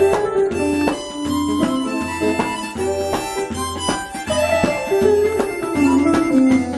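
Harmonica playing a Hindi film-song melody over an electronic keyboard accompaniment with a steady beat.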